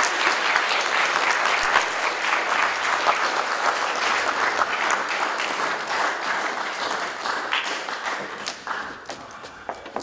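Audience applause: dense, steady clapping that thins and fades out over the last couple of seconds.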